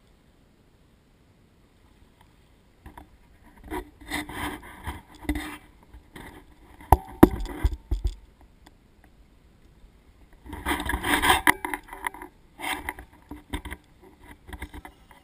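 Bursts of scraping and rubbing, with a sharp knock about seven seconds in and a loud stretch of scraping near the end.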